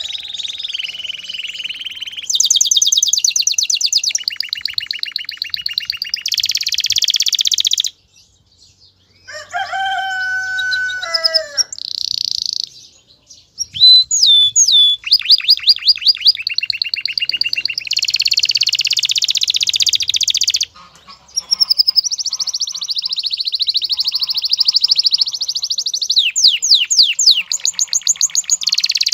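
Male domestic canary singing in breeding condition: long, loud, high rolling trills of rapidly repeated notes, one phrase after another. Around eight seconds in there is a brief pause, followed by a lower, slurred phrase before the fast trills resume.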